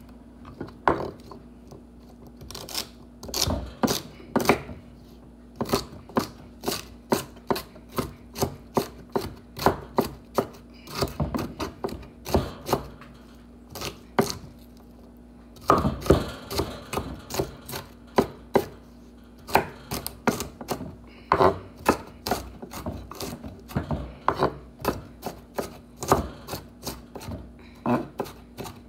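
Chef's knife chopping celery on a wooden cutting board: an irregular run of sharp knocks, roughly two or three a second, with a short pause about halfway through.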